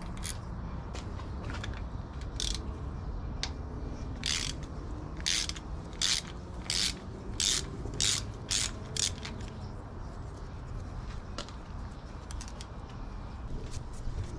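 Hand ratchet wrench clicking in short bursts as it is swung back and forth, about a dozen strokes between roughly four and nine seconds in, with scattered single tool clicks around them.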